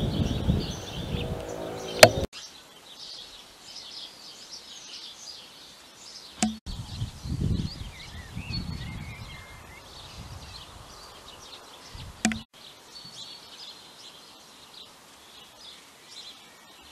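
Small birds chirping and singing in the background outdoors, many short high calls. There are bouts of low rumble near the start and again in the middle, and sharp clicks about two, six and a half, and twelve seconds in.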